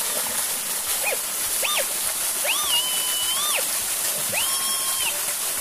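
Metal detector giving a target signal as its coil passes over buried metal: four rising-and-falling tones, two short ones followed by two longer ones held steady at the top.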